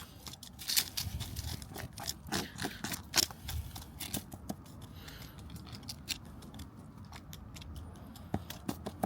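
Dug-up soil being scraped and pushed back into a hole: a run of short, irregular crunching scrapes and clicks, busiest in the first half.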